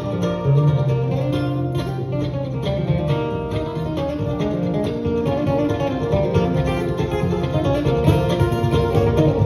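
Live bluegrass band playing an instrumental break, with the acoustic guitar taking the lead over banjo, mandolin, upright bass and fiddle.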